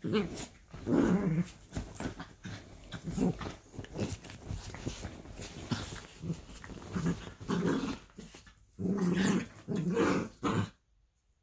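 Two miniature dachshunds play-fighting, growling in repeated short bursts; the growls stop about a second before the end.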